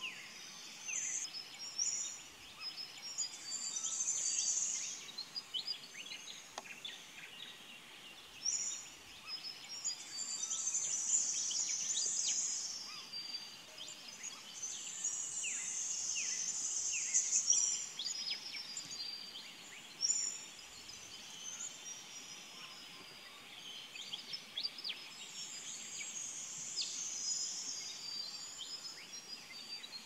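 Morning chorus of several songbirds: high, bright song phrases coming in bouts of a few seconds, about five of them, with many short quick chirps in between.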